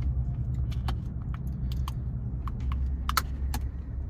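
Steady low hum of a car running, heard inside the cabin, with scattered light clicks and taps throughout.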